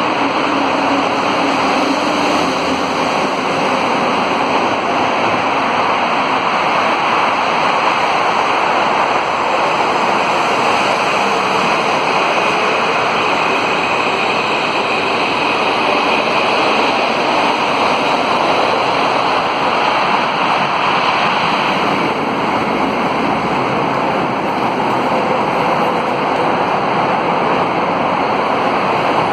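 A loud, steady, wind-like rushing noise that does not change. Beneath it, an Alstom AS 02 metro train pulls out of the platform, heard only as a faint whine near the middle.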